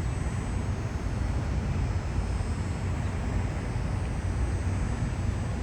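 Steady low rumble with an even hiss, like a vehicle engine or passing traffic, with no distinct events.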